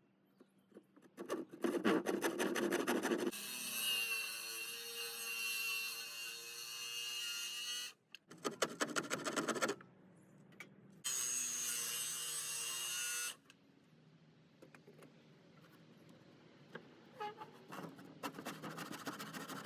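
A handheld electric power tool run twice. Each run starts rough and rattly, then settles into a steady high running tone, and stops abruptly, first about eight seconds in and again about thirteen seconds in. Faint scraping and clicks of handling follow.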